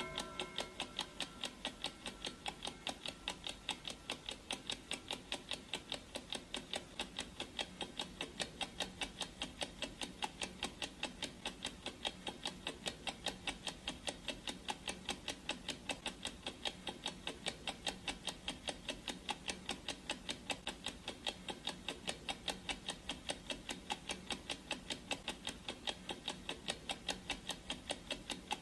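Clock ticking sound effect for a countdown timer: fast, perfectly even ticks, a few a second, without a break.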